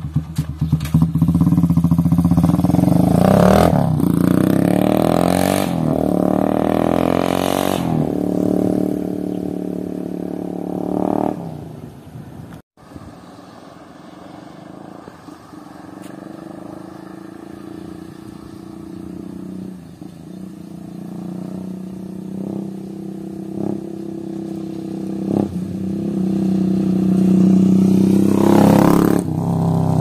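Honda TMX 155's single-cylinder four-stroke engine running without a muffler: revved up and down as the motorcycle pulls away. It drops out about twelve seconds in, then comes back faint and grows louder as the bike rides back and passes close near the end.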